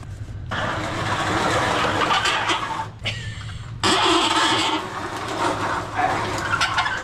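Two long stretches of scraping and rustling as stored goods are shifted by hand: first cardboard boxes, then a black plastic shelving unit dragged across the floor. A steady low hum lies underneath.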